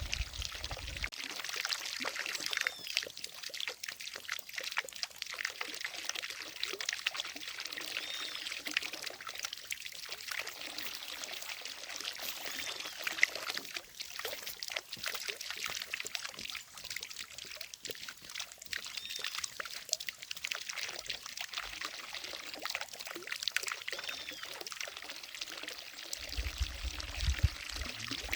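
Water from a fountain falling and splashing into a lake: a steady pouring, trickling splash with small drips throughout. A low rumble comes in briefly near the end.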